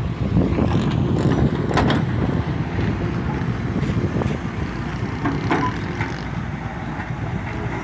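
Volvo EW145B wheeled excavator's diesel engine running steadily under load while the bucket digs a trench. A few sharp knocks from the bucket and earth, the clearest about 2 seconds in and another about 5 seconds in.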